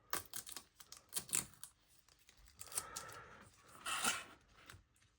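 Handling noise of plastic film and adhesive tape: small crinkles, taps and clicks, with a short tearing rustle about four seconds in.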